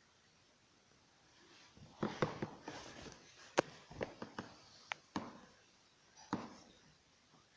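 A run of sharp clicks and taps mixed with rustling, starting about two seconds in and stopping about a second before the end.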